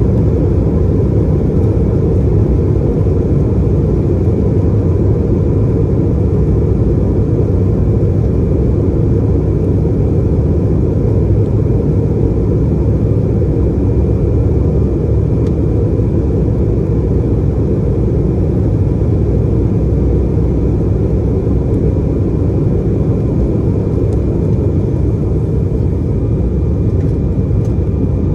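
Embraer E190's two General Electric CF34 turbofan engines at takeoff thrust, heard inside the cabin during the takeoff roll: a steady, loud, deep roar with a thin high whine over it.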